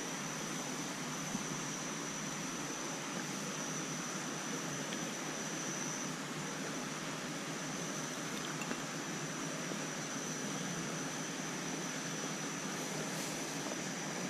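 Steady rush of a shallow creek running over rocks, with no clear knocks in it. A thin, high steady tone runs over it and drops out briefly about six seconds in.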